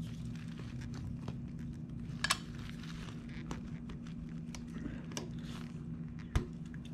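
Small metal clicks and scrapes of a pick prying a retaining clip off a motorcycle footpeg's pivot pin, with a sharper click about two seconds in and a low knock near the end, over a steady low hum.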